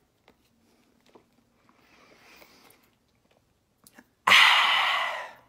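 Faint mouth sounds of biting and chewing, then a sudden, loud breath forced out through the open mouth that lasts about a second and fades away.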